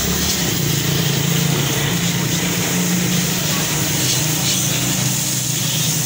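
Water jet from a hose spraying onto a motorcycle, a steady hiss, over a steady motor hum.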